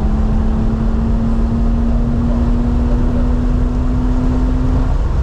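2018 BMW M3 Competition's twin-turbo inline-six under load on track, heard from inside the cabin over heavy road and tyre rumble; its engine note climbs slowly in pitch as the car accelerates, then breaks off about five seconds in.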